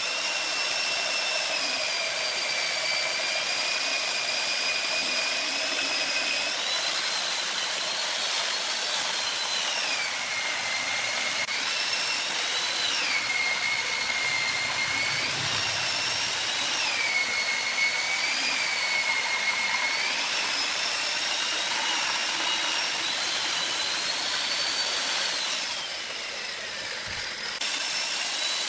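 Wood lathe turning, a cutting tool hissing against the spinning wood with a high whine that slides up and down in pitch and jumps to a new pitch several times.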